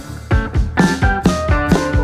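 Background music with a steady drum beat and held instrumental notes.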